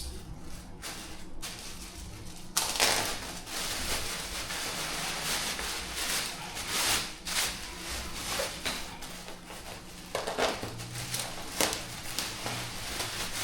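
Packaging of a new set of chair caster wheels being opened and handled. It is fairly quiet at first; from about two and a half seconds in there is steady rustling with scattered clicks and knocks.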